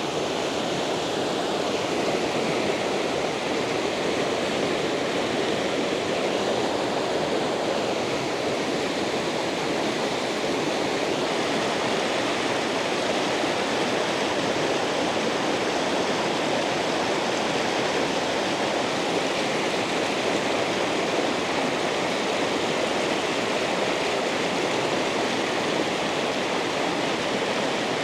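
Mountain trout stream rushing over rapids: a steady, even rush of moving water with no change.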